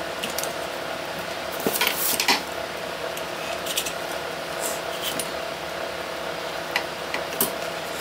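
Metal woodworking clamps clattering and clinking as they are handled and picked from a pile on the workbench, with scattered sharp clicks and knocks, over a steady faint hum.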